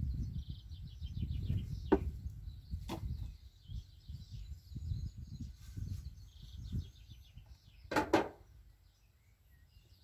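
Garden ambience: a low, uneven rumble, small birds chirping in short trills, and three sharp knocks, the loudest about eight seconds in.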